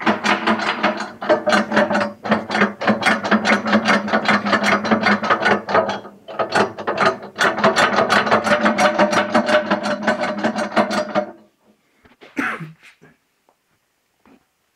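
Fast metallic ratcheting rattle from the stove's steel grate mechanism, about seven clicks a second. It breaks off briefly around six seconds in and stops near eleven seconds, and a single knock follows about a second later.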